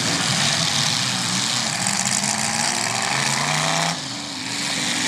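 Demolition-derby car engines running and revving unevenly, several pitches wavering up and down at once under a dense wash of noise. The sound dips briefly about four seconds in.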